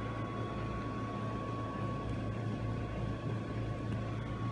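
Steady background hum of a room: a low drone with a thin, steady high tone over it and no distinct events.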